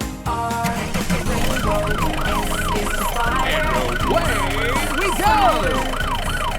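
Emergency-vehicle siren yelping, its pitch rising and falling about twice a second, with a second up-and-down tone overlapping it and a few sliding whistle tones near the middle.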